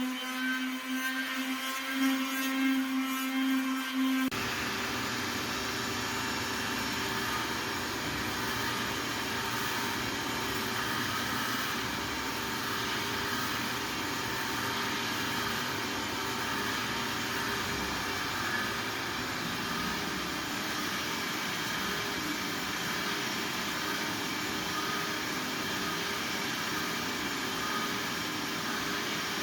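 A steady pitched motor hum, then about four seconds in an abrupt change to a steadier, hissy machine whir that runs on unchanged: a power machine of the kind used in floor refinishing.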